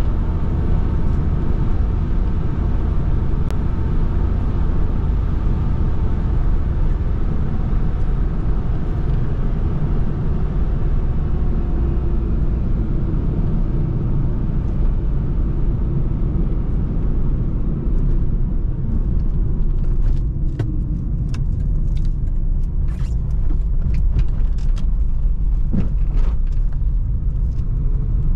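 1999 Honda HR-V with the 1.6-litre D16A engine and CVT on the move: a steady low engine and road rumble. About two-thirds of the way through, the hiss fades and irregular sharp clicks and knocks come through.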